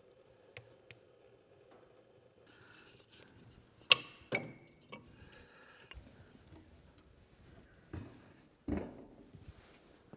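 Scrap wood cutoffs knocking against each other and the steel wood stove as they are handled and fed into a freshly lit fire: a handful of sharp knocks and clacks, the loudest about four seconds in.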